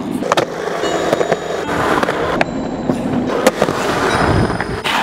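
Skateboard wheels rolling on concrete, with several sharp clacks of the board popping and landing.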